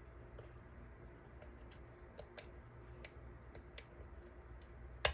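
Small irregular metallic clicks of a pick working the pins inside a Deguard dimple lock cylinder, with one sharper, louder click near the end.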